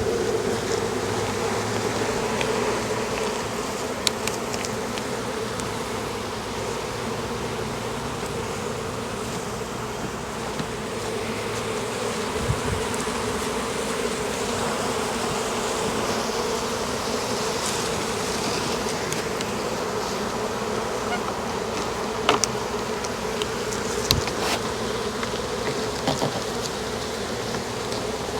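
A swarm of honey bees buzzing in a steady, dense hum, just after being dumped into a log hive. A few light knocks sound briefly now and then.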